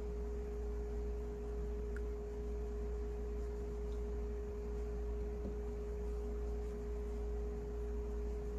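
A steady single-pitched electrical tone, fairly high, sits over a low mains-like hum and a faint background hiss. No brushing or other events stand out.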